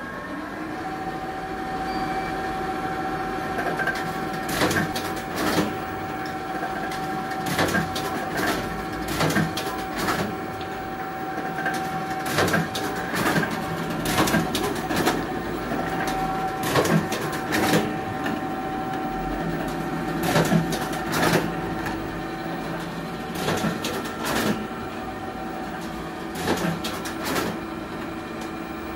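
Duplo DBM-500 bobbin wire stitching machine running with a steady motor hum, punctuated by sharp clacks, often in pairs, every second or two as it drives wire stitches.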